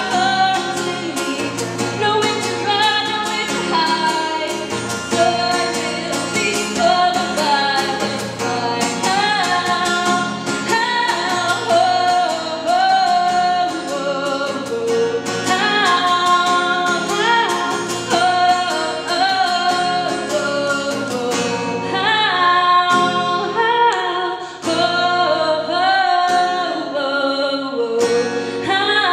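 A woman singing into a microphone while strumming her acoustic-electric guitar, a live solo performance. The strumming gets lighter about three-quarters of the way through while the singing carries on.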